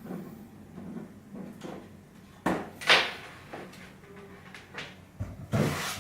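Handling noise from wiring up a car stereo head unit: a series of knocks and clicks as connectors and cables are moved and plugged in, with a sharp knock about three seconds in and a brief rustling clatter near the end.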